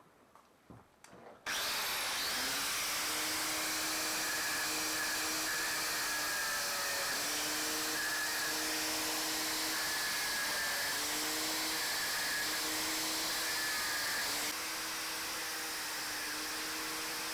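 Angle grinder starting up and running steadily, its motor whine sagging in pitch now and then as it bites into the metal.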